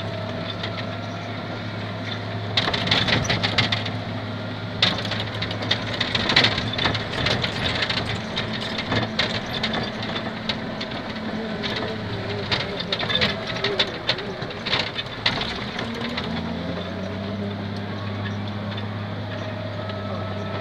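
Diesel engine of a wheel loader running steadily, heard from inside the cab. Rattling and knocking come in bursts from a few seconds in until near the end as the machine moves over the rough track.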